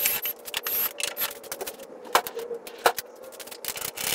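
Irregular clicks, taps and scrapes of hands and tools working on a car's air cleaner assembly, with two sharper knocks about two and three seconds in.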